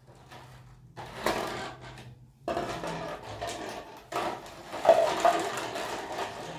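Hard plastic water bottles being handled and set against one another on a concrete floor, with clear plastic wrapping crinkling. There are three stretches of rustling, with a few sharp knocks among them.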